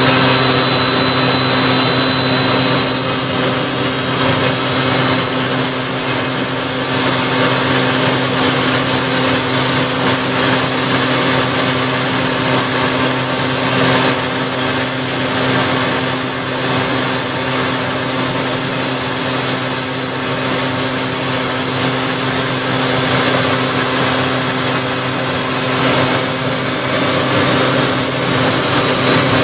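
Homemade gas-turbine jet engine built from a turbocharger, running loud and steady: a rushing roar with a high turbine whine. The whine rises slightly in pitch a few seconds in, and again near the end as more fuel is given.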